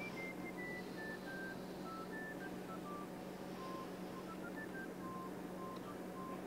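Quiet background music: a simple melody of short, pure high notes played one at a time, over a steady low hum.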